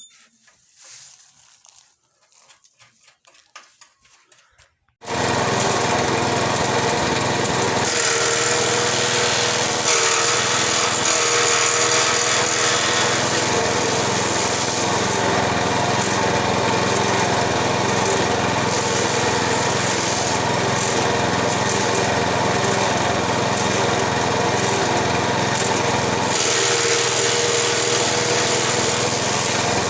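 Grass chopper machine running steadily at speed. It cuts in abruptly about five seconds in, after a few seconds of faint knocks.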